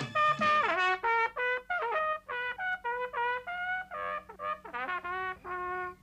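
Trumpet solo in a bouncy cartoon band tune: a run of short separate notes, with a falling slide about half a second in and a wavering held note near the end.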